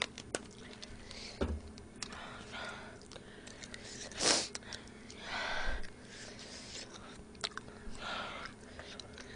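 A woman breathing sharply through her mouth in a few short hissing breaths, the loudest about four seconds in, with faint chewing and mouth clicks between: panting against the burn of very spicy fire noodles.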